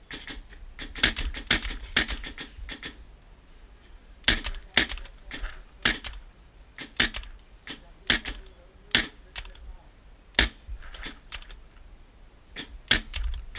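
A pump-action Empire Sniper paintball marker firing a string of sharp pops, spaced unevenly at about one to three a second, with short pauses between groups.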